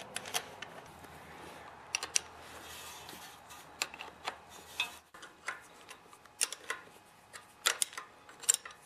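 Sharp, irregular metal clicks and clinks of a combination wrench turning the carburetor's two mounting bolts at the intake of a small minibike engine, sometimes two clicks close together.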